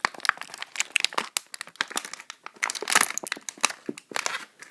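Plastic toy packaging crinkling and crackling in irregular bursts as it is handled and pulled apart to free small taped-in accessories.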